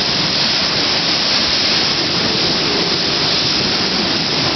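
Typhoon winds and rain as a loud, steady rushing noise, with gusts buffeting the microphone.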